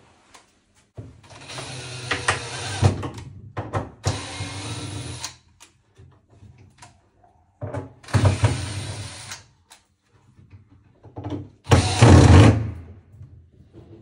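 Cordless drill-driver running in four short bursts, driving screws into a cabinet door's hinges; the last burst is the loudest.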